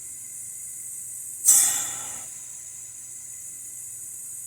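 Embraco EME60HER refrigeration compressor running with a steady low hum, air hissing through its hose line. About a second and a half in, a sudden loud rush of air fades away over about a second.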